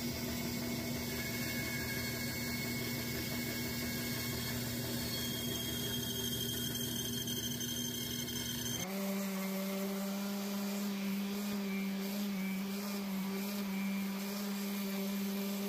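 Bandsaw running steadily as its blade cuts along a 2x8 board. About nine seconds in, the sound changes abruptly to a Bauer random orbital sander running steadily on the wood, with a slightly lower, even hum.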